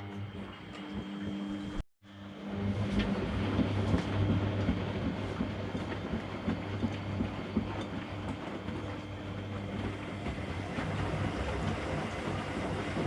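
Washing machine running: a steady low hum with rushing, crackling noise over it. The sound cuts out for an instant about two seconds in, then carries on louder.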